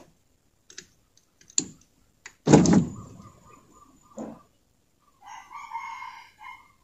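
A few light clicks and one loud clunk, about two and a half seconds in, from hands working inside a stripped car door. Near the end a rooster crows once, for about a second and a half.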